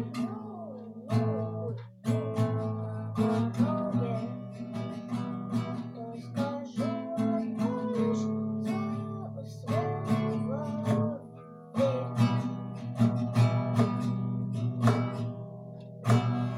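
Acoustic guitar strummed in chords, the song being played through to its close. There is a short break about two seconds in, and a last strummed chord is left ringing near the end.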